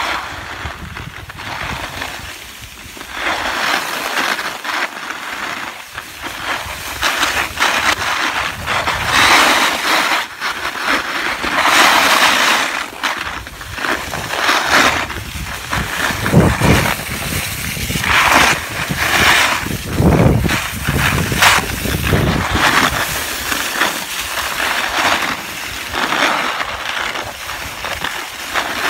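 Skis scraping and carving over firm groomed snow, a hiss that swells and fades with each turn and is loudest through the middle stretch, over a low rumble of wind on the microphone.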